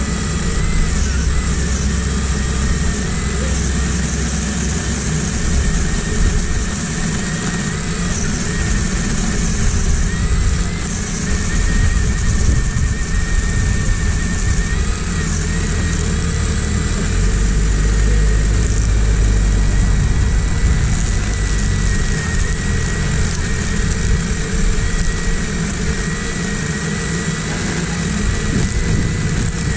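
Black & Decker GKC3630L 36 V cordless chainsaw cutting through a thick log: a steady high electric motor whine with the chain chewing through wood, the pitch dipping slightly now and then under load.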